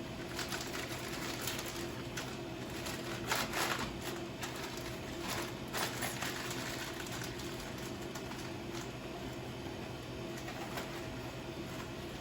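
Light rustles and clicks of dry ingredients (raisins, walnut halves) being spooned and handled for overnight oats, over a steady low hum. The handling noises come in a few short bursts, the strongest about three and a half seconds in.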